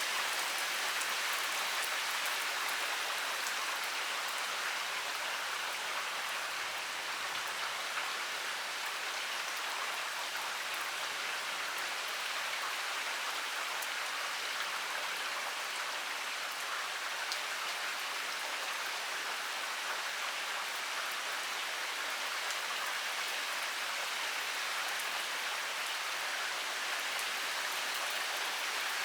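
Heavy rain pouring steadily, an even hiss of water with many fine drop ticks on surfaces.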